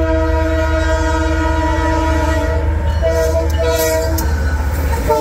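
Diesel freight locomotive's multi-tone air horn sounding one long blast and then two short ones, with a further blast starting at the very end. Underneath runs the heavy steady rumble of the BNSF locomotives passing close by.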